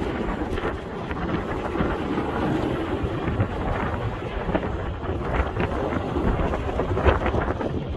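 Wind buffeting the microphone over the low rumble of an off-road vehicle driving on a desert sand track. A couple of sharper knocks come in the second half.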